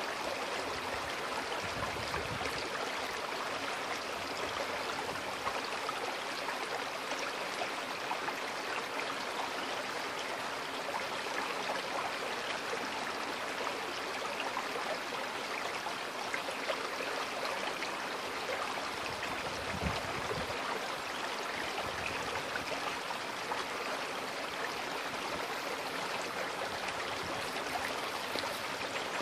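Small, shallow creek flowing steadily over stones, an even babbling rush of water.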